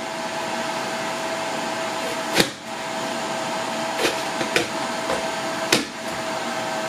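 Steady whirring of a De'Longhi Multifry's hot-air fan, with a faint steady tone in it. Four sharp clacks from the Nicer Dicer lid being pressed down through the dicing insert break in; the loudest comes about two and a half seconds in.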